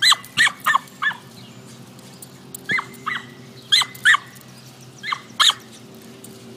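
A small dog yipping: about ten short, high-pitched yips, each dropping in pitch, in quick clusters of two to four.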